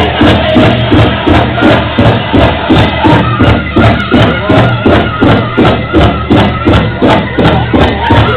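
Pow-wow drum group's music: a steady beat on a large pow-wow drum, about three beats a second.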